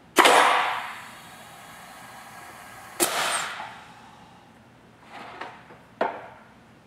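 Air-powered Tippmann Clicker 700 press cycling: a sudden burst of air as the ram fires, a faint steady hiss while it holds, then a second sharp release of air about three seconds later. Lighter knocks and a sharp clack follow near the end as the tray is handled.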